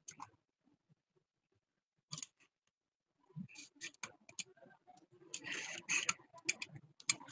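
Handling noise: a few soft clicks, then from about halfway on a run of irregular clicks and rustling, as things are moved about close to the phone.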